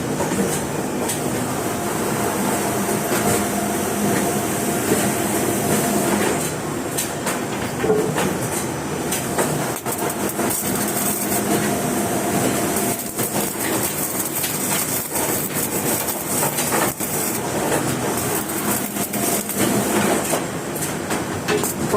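Electric welding arc crackling and sizzling steadily, a dense run of tiny snaps.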